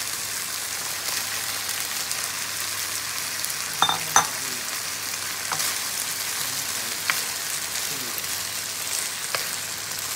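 Chicken and vegetable stir-fry sizzling in a wok: a steady frying hiss, with a few sharp clacks as the food is stirred, the loudest pair about four seconds in.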